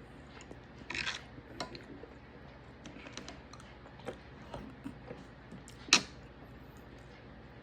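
Scattered small clicks and clinks of cutlery against a plate during a steak meal, with a brief scrape about a second in and one sharp clink about six seconds in, the loudest.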